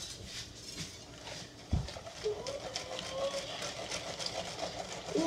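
Faint scattered clicks and knocks with a single low thump a little under two seconds in, and a faint voice in the middle.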